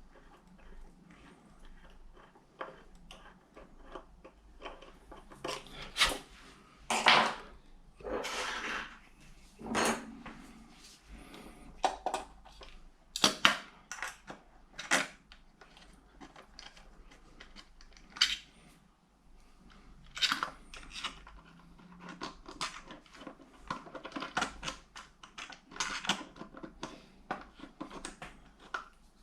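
Irregular metallic clinks, clicks and scrapes of hand tools and screws being handled at a metal electrical back box, with a cluster of louder knocks in the middle.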